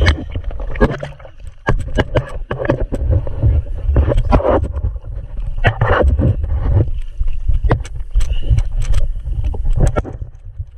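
Water splashing and sloshing against a jet ski's hull as a person in the water holds on to it, with irregular knocks and clatters of hands on the hull over a constant low rumble of buffeting on the microphone.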